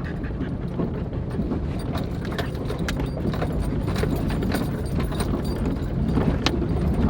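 A Jeep driving slowly over a rough, rocky off-road trail: a steady low engine and drivetrain rumble with irregular clunks, knocks and rattles as the body and suspension go over bumps.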